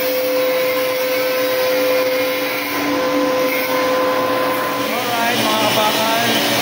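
A steady mechanical hum holding one pitch over a constant hiss, like a running motor or blower. Faint voices come in near the end.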